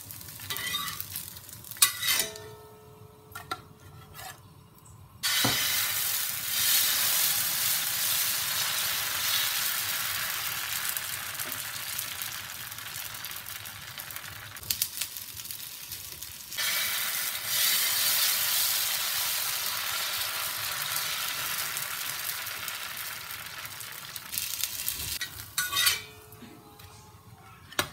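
Green moong dal dosa batter sizzling loudly on a hot dosa tawa: the hiss starts suddenly about five seconds in, drops away for a couple of seconds midway, then comes back as the batter is spread with a ladle. Before it and near the end, a metal spatula scrapes and clinks against the pan.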